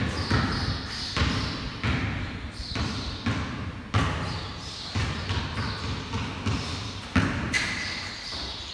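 Basketball bouncing on a concrete floor in irregular bounces about a second apart, each bounce echoing in the bare hall.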